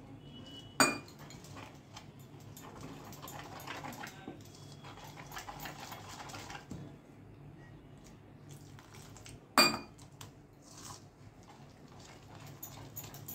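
Wire whisk scraping and rattling around a stainless steel bowl as gram-flour (besan) batter is mixed, with two sharp metal clinks, about a second in and again near ten seconds.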